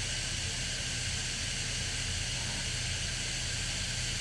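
Steady hissing noise with a low hum underneath, with no distinct events.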